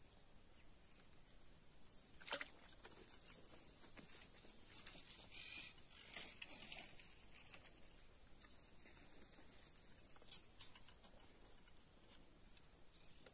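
Near silence: a faint, steady, high-pitched insect drone from the marsh, with a few brief soft clicks or rustles, the sharpest about two seconds in and again near ten seconds.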